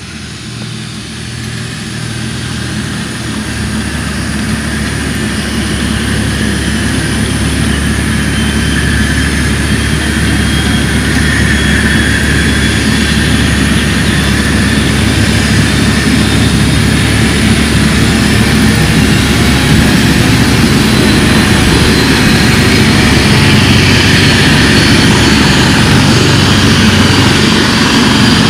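Eurocopter AS365 N3 Dauphin helicopter running on the ground, its twin turboshaft engines and rotors building up and growing louder over the first ten seconds or so, then holding a steady run with a high turbine whine and a low rotor drone.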